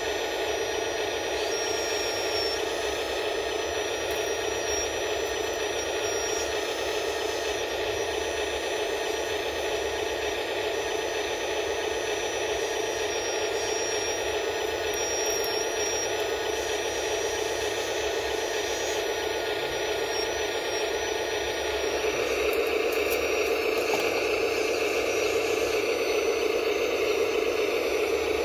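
Steady whirring hiss of a model hydraulic excavator's pump running while the excavator digs and loads sand, getting louder about two-thirds of the way through.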